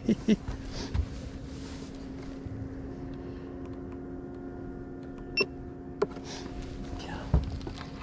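Electric trolling motor humming steadily, with a few light clicks and knocks over it.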